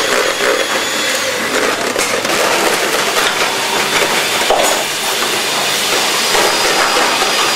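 Busy kitchen noise: a steady loud hiss with scattered clatter and knocks of pans and utensils as several cooks work at once.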